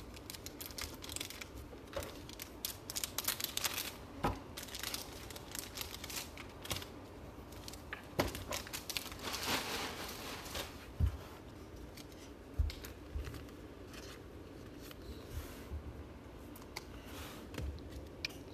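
Trading card packs being opened and their cards handled: foil wrappers crinkling and tearing, and cards flicking and sliding against each other in irregular bursts of rustles and clicks.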